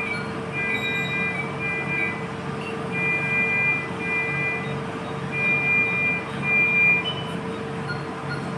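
Hospital monitor alarm beeping, long high tones in pairs with short pauses between them, over a steady electrical hum.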